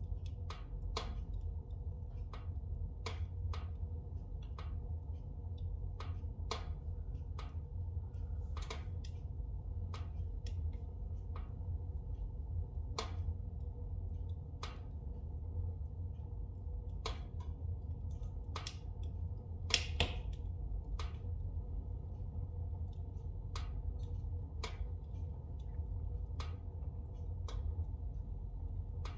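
Spruce logs burning in a fireplace: irregular sharp crackles and pops over a steady low rumble of the fire, with the loudest pops about two-thirds of the way through.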